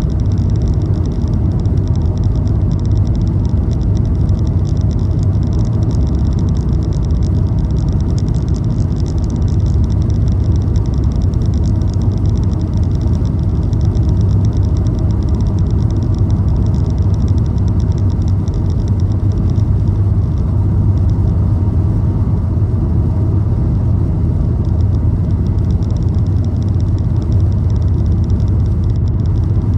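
Car driving steadily at road speed: a constant low rumble of engine and tyres on the road.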